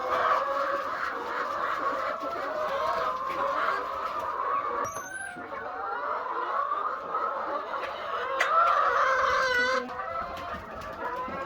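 A large flock of laying hens clucking together in a dense, continuous chorus of overlapping calls.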